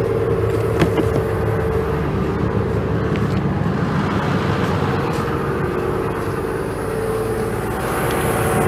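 Cummins 6BT5.9 six-cylinder diesel engine of an ET-Compressors SD 390T mobile screw compressor running steadily at low revs, warmed up and ready, with the air valve still closed and no air being drawn off. A steady higher tone sits over the engine's hum.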